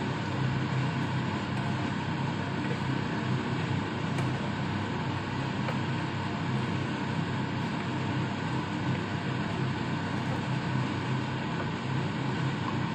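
Steady low drone of a kitchen fan running while noodles are stir-fried and tossed in a wok with a wooden spatula.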